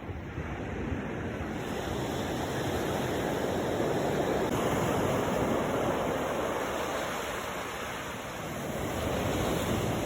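Sea waves washing in on the shore, a steady rush that swells to a peak mid-way, eases off and builds again near the end.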